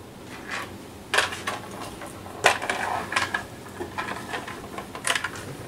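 Small metal screws clinking and rattling as they are handled, an irregular string of light clicks.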